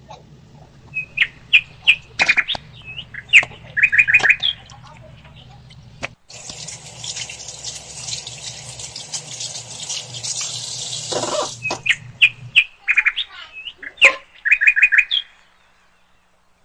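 Small birds chirping in quick clusters of short high notes, in two spells. Between them comes a steady hiss lasting about five seconds.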